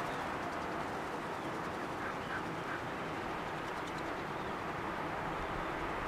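Outdoor seabird-colony ambience: a steady wash of noise with a few short bird calls about two seconds in.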